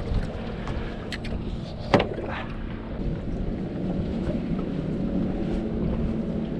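Wind and water noise around a small boat at rest, with a faint steady hum underneath and one sharp knock about two seconds in.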